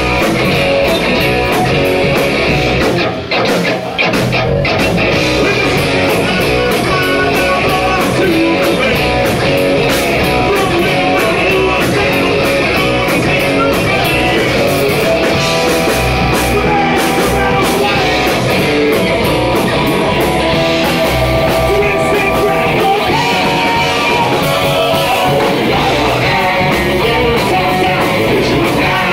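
A rock band playing live: electric guitars, bass and a drum kit, with a vocalist singing into a microphone. The playing drops out briefly about three seconds in, then carries on.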